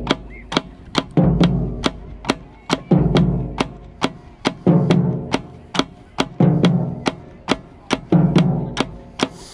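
Marching snare drum struck at close range in a steady pulse of about two and a half strokes a second, played with the drumline and marching band, whose heavier accented hits come about every second and a half.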